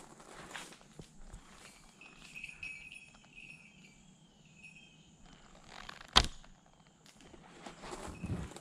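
Faint, intermittent jingling of a falconry bell worn by a hawk, a thin wavering high ringing, with one sharp knock about six seconds in that is the loudest sound.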